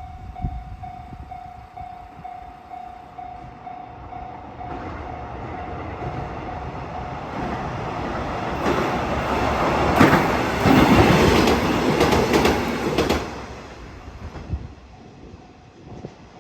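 Level-crossing bell ringing in a steady pulse as a train approaches and passes over the crossing. The train grows louder, and its wheels clack over the rail joints, loudest about ten to thirteen seconds in. The bell is heard again as the train moves away.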